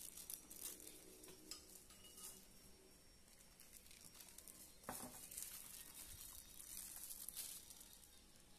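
Near silence: a faint crackle and light ticks as a metal spoon sprinkles toasted sesame seeds and grated coconut onto a banana leaf, with a light tap about five seconds in.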